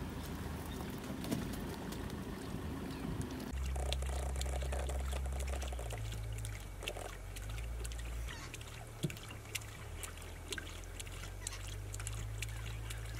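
Male lion lapping water: short, wet, irregular laps and splashes over a low steady hum that shifts pitch a few times.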